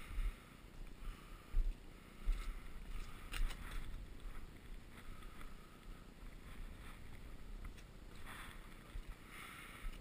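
Outdoor ambient noise with wind gusting on the microphone in irregular low rumbles, and a few light clicks.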